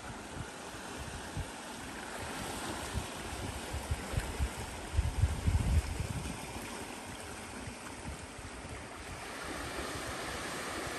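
Small waves washing onto a shallow rocky shore, with wind buffeting the microphone in gusts that are strongest about halfway through.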